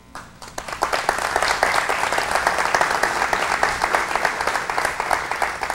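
Audience applauding: many people clapping, building up within the first second and then going on steadily.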